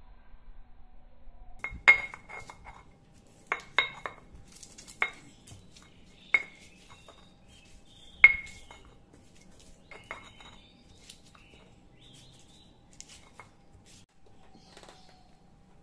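Stone pestle pounding fresh spices in a stone mortar (cobek): sharp stone-on-stone knocks with a short ring, about eight loud strikes in the first nine seconds, then softer crushing and scraping.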